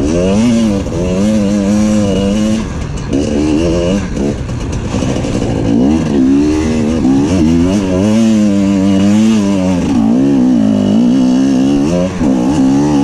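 KTM 250 EXC TPI two-stroke dirt bike engine under constant on-off throttle, its pitch rising and falling continually, with short throttle-offs about three seconds in and near the end.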